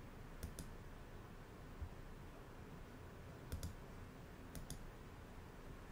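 Faint clicks from a computer mouse and keyboard, in pairs about a tenth of a second apart: about half a second in, then again around three and a half and four and a half seconds, over low room hiss.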